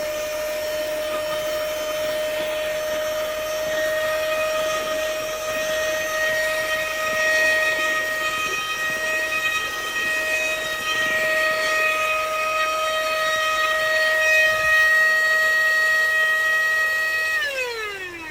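Corded handheld car vacuum cleaner running with a steady high-pitched motor whine while sucking up spilled salt. About a second before the end it is switched off and the whine falls in pitch as the motor spins down.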